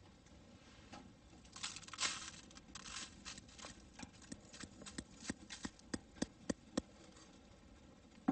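Ground coffee poured from a hand grinder's catch cup into a paper filter in a plastic pour-over cone, a soft rustling hiss. Then a run of sharp taps, quickening and louder toward the end, as the cup is knocked to shake out the last grounds.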